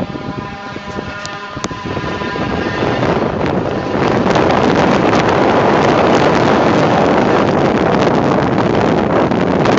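Steady rushing road and wind noise from a moving vehicle, growing louder from about two seconds in and loud and steady after about four seconds. At the start a steady tone of several pitches fades out.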